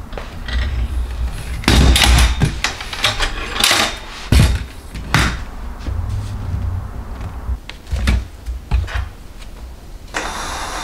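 White metal folding step stool being unfolded and handled: a run of clanks and knocks with dull thumps, the loudest clatter about two seconds in and more knocks around four and five seconds.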